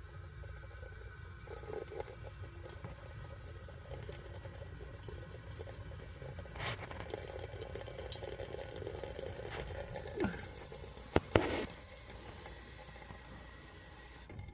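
Gas boiler running with a bubbling, boiling-water sound from a boiler that the owner calls cracked, over a steady low rumble. Two sharp clicks close together about three-quarters of the way through are the loudest sounds.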